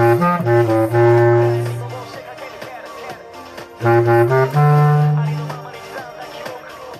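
Bass clarinet playing two low phrases, each a few short notes and then a long held note. The second phrase starts about four seconds in, and a quieter backing track carries on between them.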